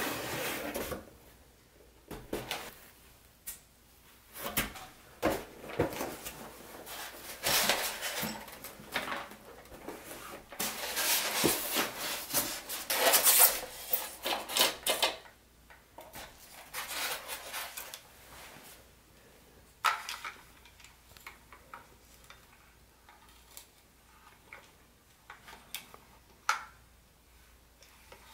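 Unpacking noise: a cardboard box and a foam tray scraping and rubbing in a run of noisy bursts. In the second half these thin out to scattered light clicks and taps of a plastic toy locomotive being handled.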